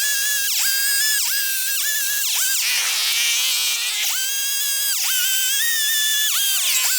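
Chainsaw running at high speed while cutting wood, its pitch dipping sharply and recovering about once or twice a second as the chain bites into the cut.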